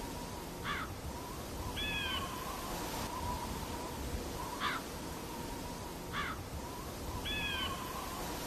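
Five short, high animal calls spaced irregularly over a faint steady hum; two of them carry a clearer, bending tone.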